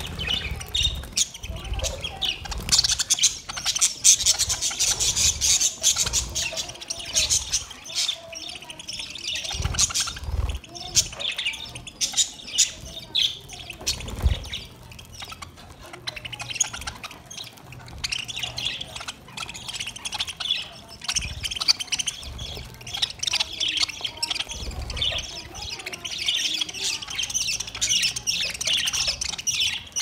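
A flock of budgerigars chattering, with many overlapping high chirps and warbles. A few dull low thumps come through, the loudest about 14 seconds in.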